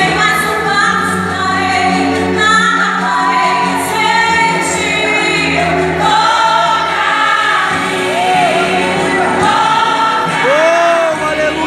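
Gospel worship music: a vocal group singing over instrumental backing with held bass notes.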